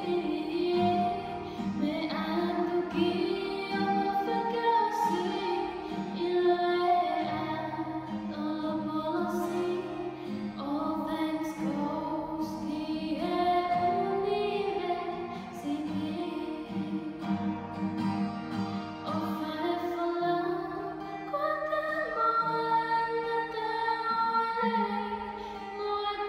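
A woman singing solo, accompanying herself on a strummed acoustic guitar.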